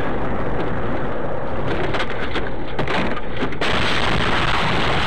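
Loud, steady rushing noise of a car on the move, picked up by its dashcam microphone, with a shift in tone about three and a half seconds in.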